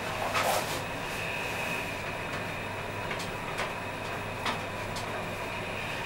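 Roped hydraulic elevator travelling: a steady hum with a faint high whine, and a few light clicks partway through.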